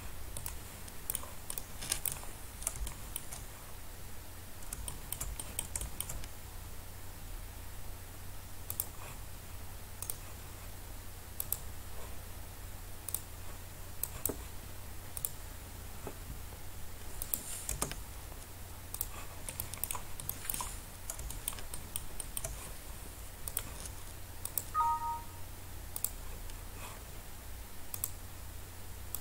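Irregular clicks of a computer mouse and keyboard being worked, over a steady low hum. Near the end comes one short beep.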